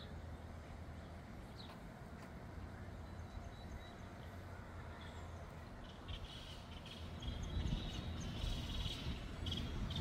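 Faint outdoor ambience: a low steady rumble with small birds chirping, the chirps coming more often in the second half.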